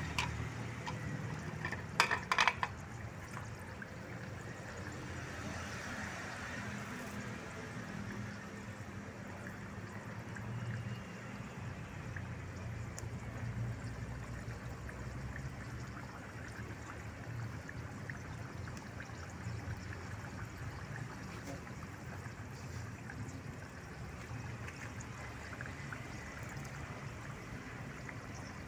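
Chicken broth boiling hard in a pan over a wood fire: a steady bubbling and sputtering. A brief sharp clatter about two seconds in.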